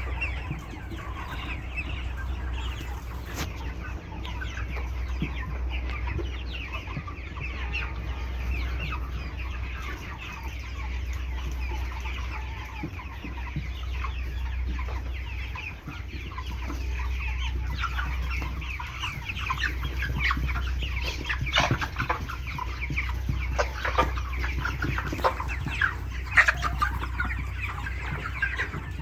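A large flock of broiler chickens clucking and chirping in many overlapping calls, over a steady low hum. A few louder, sharper calls stand out in the second half.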